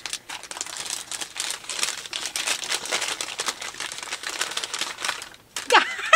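Crinkly wrapping rustling and crackling for about five seconds as a yarn advent-calendar mini skein is unwrapped by hand. A woman's short exclaiming voice comes in near the end.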